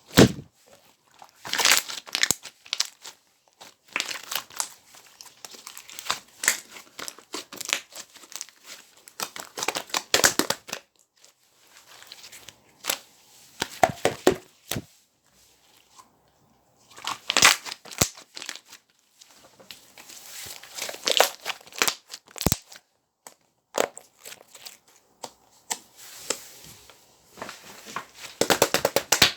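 Slime being squeezed and kneaded by hand close to the microphone, its trapped air bubbles popping in dense crackling bursts of a few seconds with short pauses between.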